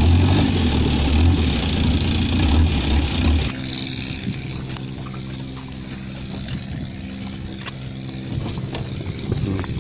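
Boat engine running loud with wind and water rushing past, which cuts off abruptly about three and a half seconds in; then a small engine idling steadily at a lower level, from the three-wheeled motorcycle rickshaw.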